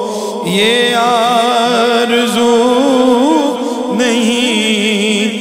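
Unaccompanied devotional singing of a naat: voices holding a long, wavering melody with no words.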